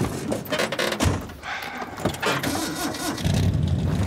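A car door shuts with a thump about a second in, amid other handling noises. A bit after three seconds in, the 1967 Chevrolet Impala's engine starts and settles into a steady low rumble.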